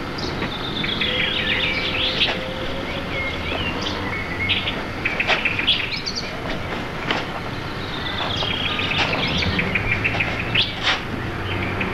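Small birds chirping and warbling in quick, repeated runs of high whistled notes over a steady low background rumble, with a few sharp clicks in between.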